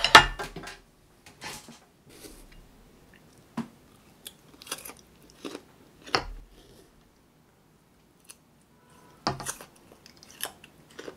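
A plate set down on a table with a sharp clack at the start, then crisp bites and chewing of sliced persimmon in short bursts. There is a pause of near silence a little after the middle, then more crunchy bites near the end.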